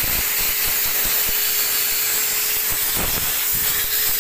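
Wagner portable electric paint sprayer's air turbine running on its higher setting, blowing a steady rush of air through the hose with a steady whine. A few soft knocks as the spray gun and hose are handled.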